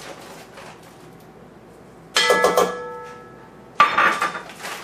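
Metal kitchen utensils clinking and ringing: two bursts of several quick metallic strikes, about two seconds in and again near the end, each ringing on briefly.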